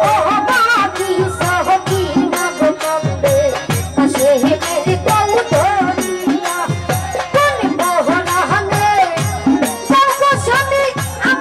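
Live Bengali folk music: a woman singing a jari song into a microphone over a steady rhythm of hand drums, whose low strokes slide down in pitch, with jingling percussion.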